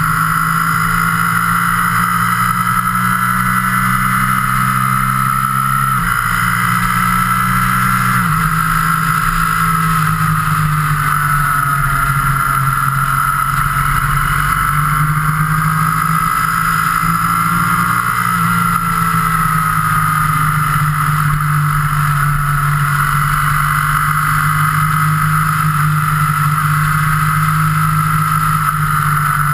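Steady engine drone and rushing road and wind noise from a moving vehicle at cruising speed, as picked up by an action camera riding on it; the engine note shifts about six and eight seconds in.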